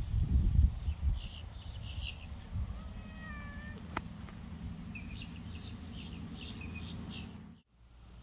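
A Ragdoll kitten gives one short, thin meow about three seconds in. Low wind rumble on the microphone fills the first second, and two runs of quick, high chirping come around it.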